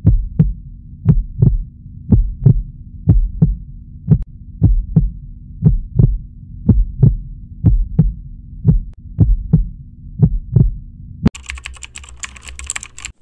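Heartbeat sound effect: paired lub-dub thumps about once a second over a steady low hum. About eleven seconds in it stops and a dense crackling noise takes over briefly.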